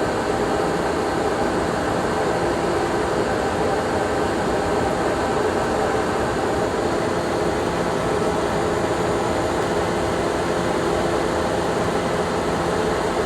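Newman LB-1872 planer machinery running steadily: a loud, even hum with several steady tones.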